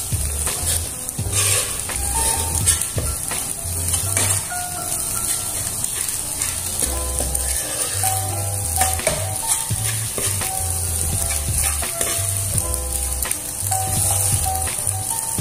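Eggs sizzling in oil in a nonstick frying pan while a metal spatula stirs and scrapes them, in short strokes, over background music.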